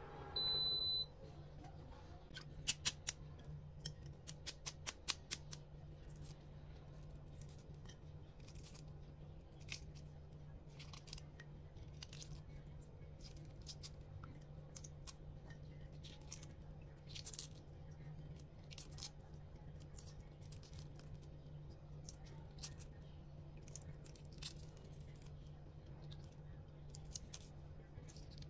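A short electronic beep from the electric cooker being switched off, then the crackle and clicking of boiled-egg shells being cracked and peeled by hand, a dense run of sharp cracks at first, then scattered softer crackles.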